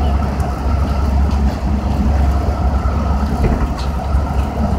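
Steady low rumble of city street traffic and idling engines.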